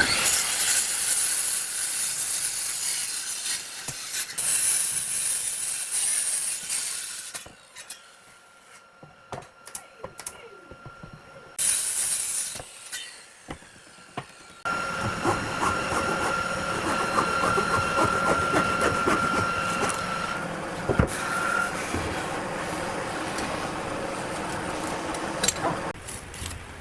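Power tool running on wood with a steady hiss, in several spells. It cuts out for a few seconds about seven seconds in. From about fifteen seconds it comes back with a held whine and a patter of small ticks, and stops just before the end.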